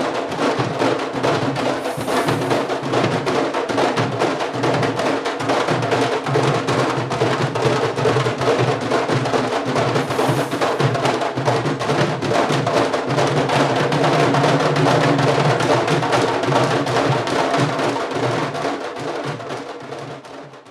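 Candombe drumming: a group of drums played fast and dense with hand and stick, the stick also clacking on the wooden drum shells. It fades out over the last couple of seconds.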